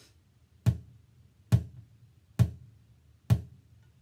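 Homemade bucket bass drum struck with drumsticks in a slow, steady beat: four low thuds a little under a second apart, each dying away quickly.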